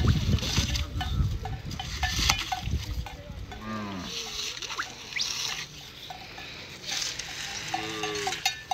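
Cattle lowing, one call falling in pitch a few seconds in and another near the end, with bells clinking irregularly. A low rumble fills the first few seconds.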